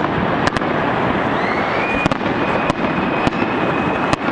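Fireworks display: a continuous crackling rumble of bursting shells, punctuated by about six sharp bangs. A thin high whistle comes in about halfway through and holds.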